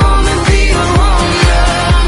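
Dance-pop music with a steady kick-drum beat, about five beats every two seconds, under a wavering melodic line.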